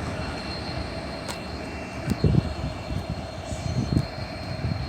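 A train running past: a steady drone and rumble with a few low thumps about two and four seconds in.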